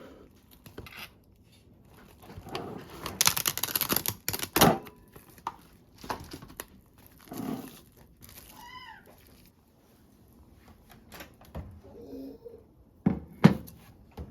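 Crinkling and tearing of packaging, loudest about three to five seconds in, with a few sharp knocks, the loudest near the end.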